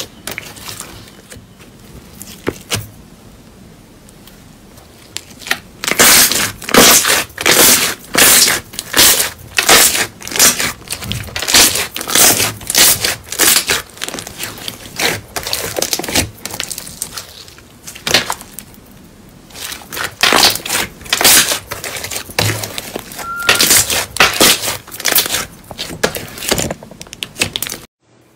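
Thick, glossy slime being squeezed and pressed by hand, giving a run of loud sticky pops and squelches, one or two a second. It is quieter for the first few seconds and pauses briefly midway.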